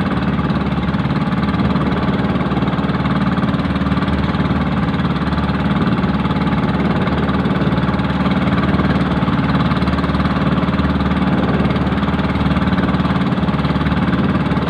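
Motor of a small outrigger fishing boat (bangka) running at a steady speed with the boat under way, a constant, even drone.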